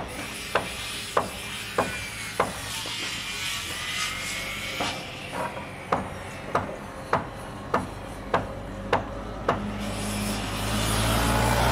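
Construction-site hammer blows at a steady pace, a little under two a second, stopping for a couple of seconds around the middle while a faint higher-pitched whine glides up and down. Near the end a low rumble of heavy machinery builds up.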